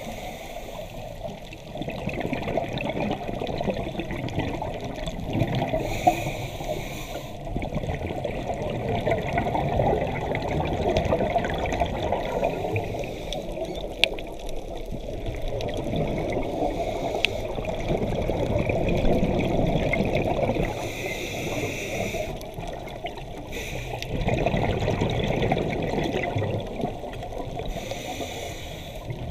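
Scuba diver's breathing underwater: steady bubbling and gurgling of exhaled air from the regulator, broken three times by a short hiss.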